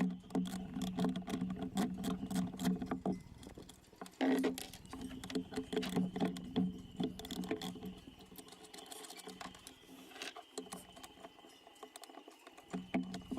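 Hand tools working on a sailboat winch's mounting fasteners: rapid irregular metallic clicks and taps, with a steady low hum under them for the first few seconds and again in the middle.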